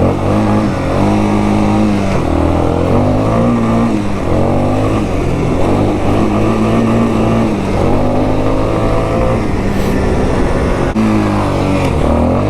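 Yamaha Warrior 350 ATV's single-cylinder four-stroke engine with stock exhaust, revving up and dropping back over and over, every second or two, while riding under load.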